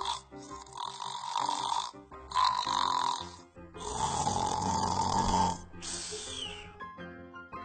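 A sleeper snoring: four snores in a row, each lasting about a second, the third the longest.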